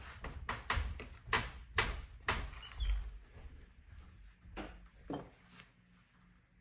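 A run of sharp clicks and knocks, several a second for the first three seconds and then fewer and fainter: a snake enclosure's door or lid being handled and opened for feeding.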